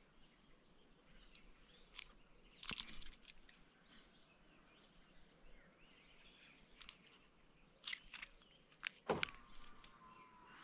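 Faint, scattered footsteps and light clicks, a few louder taps about nine seconds in, followed by a soft, steady whistle-like tone.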